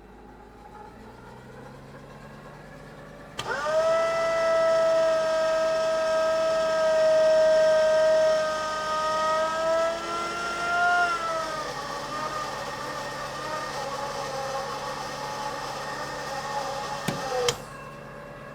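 Fire truck idling with a low hum. About three seconds in, its warning horn sounds one long steady blast of several pitches at once. The blast sags slightly in pitch partway through and stops with a click near the end.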